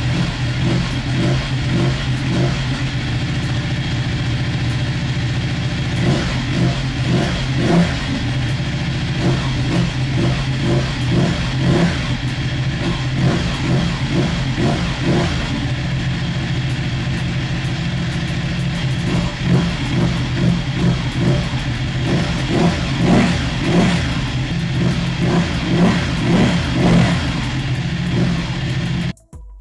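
Ducati 1199 Panigale's Superquadro L-twin engine idling cold through its Termignoni exhaust, warming up after a cold start. From about six seconds in it is blipped again and again with short, quick throttle revs in clusters.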